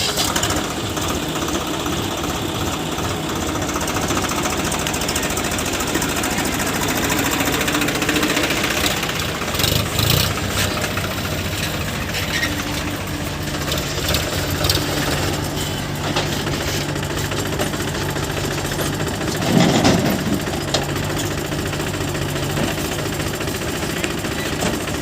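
Diesel engine of heavy machinery running with a steady knocking clatter, with brief louder surges about ten seconds in and again near twenty seconds in.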